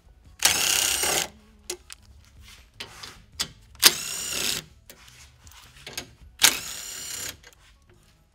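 Cordless driver with a 10 mm socket spinning out grille bolts: three short runs of motor whine, each under a second and about three seconds apart, with small clicks of handling between.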